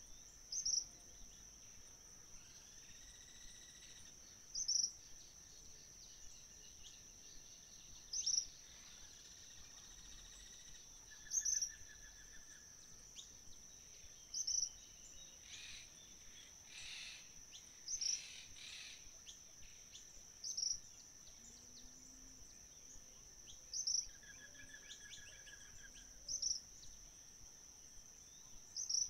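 Rural dusk ambience: a steady high-pitched insect trill held throughout, with a short sharp chirp repeating about every three seconds and fainter bird twitters and trills in between.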